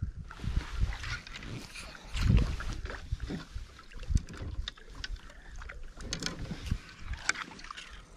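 Irregular low thumps and knocks with scattered light clicks: handling noise of an angler moving around on a small fishing boat.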